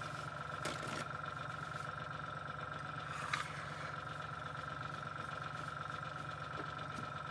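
An airbrush air compressor running with a steady, even hum. A short paper rustle comes about three seconds in.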